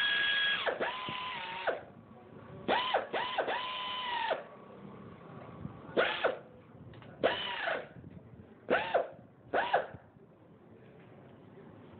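Handheld electric driver run-down in repeated trigger pulls as it spins the cylinder head bolts in, its motor whine rising and falling with each pull. One longer run near the start is followed by several shorter bursts about a second apart, stopping about ten seconds in.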